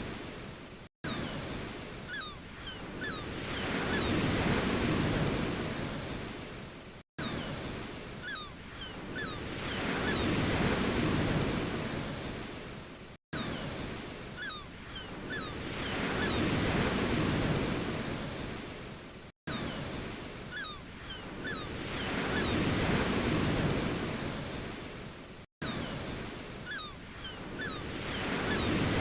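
Ocean waves surging and washing back, one swell about every six seconds. The same short recording loops, with a brief dropout at each repeat. Faint short high chirps sound over each swell.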